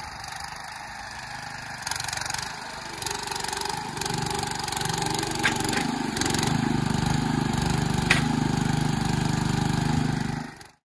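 Small engine running steadily on an ATV-drawn forestry trailer with a hydraulic log crane. It gets louder and fuller about four seconds in, then fades out near the end.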